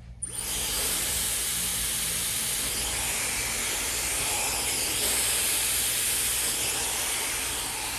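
Dyson Supersonic hair dryer switched on just after the start and then running steadily, a constant rushing hiss of air blown through hair wound on a round brush.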